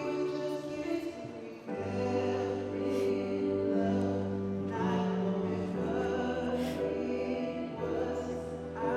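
Slow music with singing over long held notes and a low bass line that moves to a new note about two seconds in.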